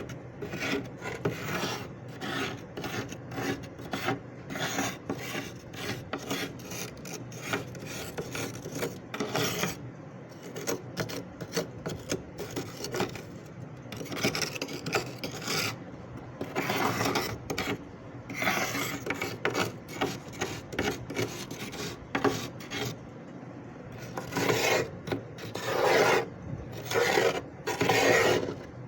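Freezer frost being scraped in quick, repeated rasping strokes, with longer, louder strokes near the end.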